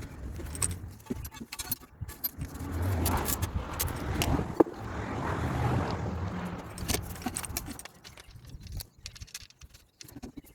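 Handling and assembly noise from the pressure washer's parts: a run of clicks, knocks and clatter over an uneven low rumble, with one sharp knock about four and a half seconds in. It dies down to faint scattered clicks after about eight seconds.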